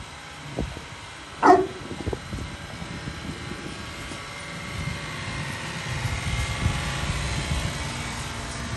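A dog barks once, loud and short, about one and a half seconds in. Under it runs a low rumble that grows louder in the second half.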